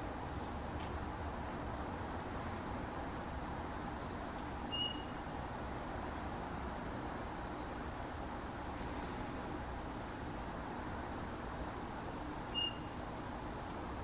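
Insects trill steadily over a low, steady rumble. Twice, about seven seconds apart, a bird gives a short song of quick high notes ending in a lower note.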